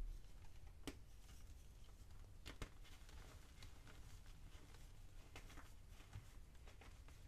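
Faint soft crumbling and rubbing of gym chalk squeezed between the hands, with a few small crackles.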